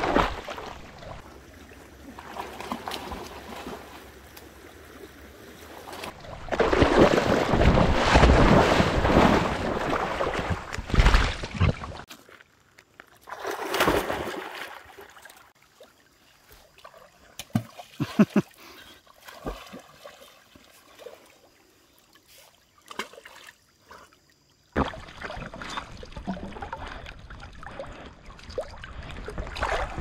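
Water sloshing and splashing close to a dog-mounted action camera as a dog swims, in loud rushing surges with a quieter stretch of small splashes and lapping in the middle.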